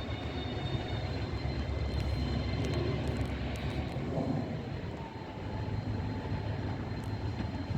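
GBRf Class 99 bi-mode locomotive running on its diesel engine, a steady low drone with a faint steady whine above it.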